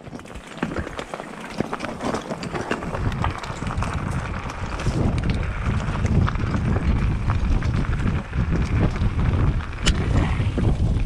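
Mountain bike riding down rough dirt singletrack, heard from an action camera on the bike: tyres running over dirt and stones, with many sharp rattles and knocks from the bike. Wind buffets the microphone as a heavy low rumble, getting louder over the first few seconds as the ride picks up speed.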